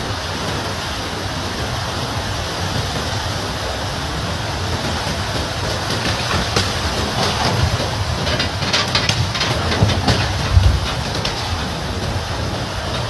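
Floodwater rushing past in a steady roar, with a run of knocks and cracks about six to eleven seconds in.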